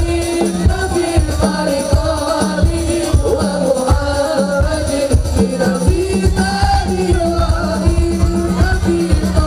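Sholawat devotional singing, a lead voice with group voices, over large hand-beaten frame drums keeping a steady rhythm of low strokes.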